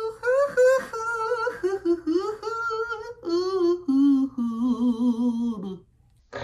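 A man singing a wordless tune, holding long wavering notes that start high and step down lower in the second half, breaking off about half a second before the end.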